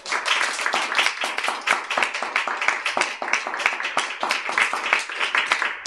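Applause from a small audience, many hands clapping at once.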